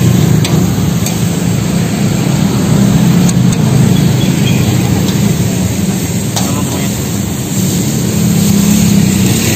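Steady low rumble of road traffic and engines, with a few faint clicks.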